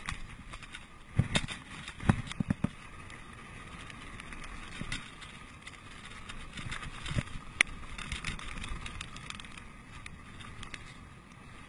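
Mountain bike rolling fast down a dirt trail: a steady rush of tyre and wind noise, broken by sharp clunks and rattles as the bike hits bumps, several in quick succession in the first few seconds and a few single knocks later.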